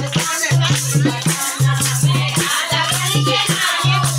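Women singing a devotional kirtan bhajan in a group, with hand claps, a dholak drum beating and the jingling of chimta tongs keeping the rhythm.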